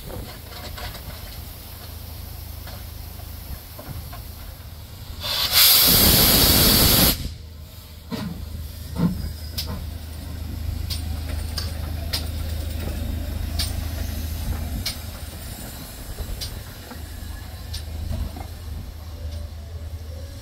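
Steam locomotive, a GWR Small Prairie 2-6-2T tank engine, letting off a loud hiss of steam for about two seconds over a steady low rumble. Faint short clicks follow at regular intervals of roughly a second and a half.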